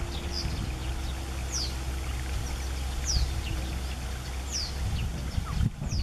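Japanese wagtail giving alarm calls: about five short, high, downward-sweeping calls, roughly one every second and a half, over a low steady rumble. This is a parent bird on alert with a fledgling close by.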